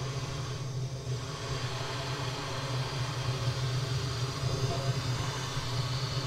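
Blowtorch flame burning steadily, a continuous rushing hiss over a low hum, heating a fitting welded into a stainless steel keg so that the solder around it melts.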